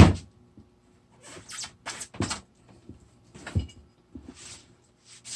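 Rubber go-kart-style tire being worked back onto a Onewheel Pint's hub by hand: a sharp knock right at the start, then several short scraping rubs of rubber against the metal hub.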